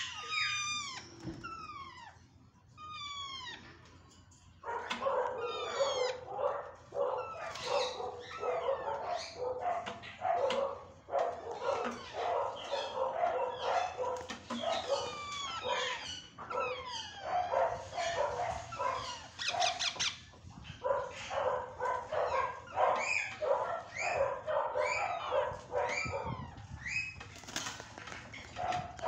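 Ring-necked parakeets calling: sharp, falling squawks, a few at first, then from about five seconds in many birds screeching and chattering over one another without a break.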